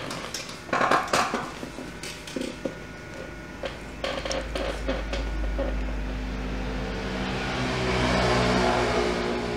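Metal tweezers clicking and tapping on a laptop circuit board while a small SMD capacitor is set in place, then from about four seconds in the steady hiss and fan whir of a hot air rework gun blowing on it, as the replacement capacitor is soldered on.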